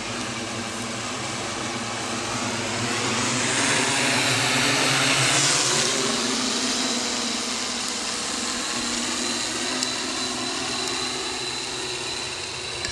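Octocopter drone's eight electric motors and propellers buzzing overhead, a steady multi-pitched whir that swells louder between about three and six seconds in, then settles back.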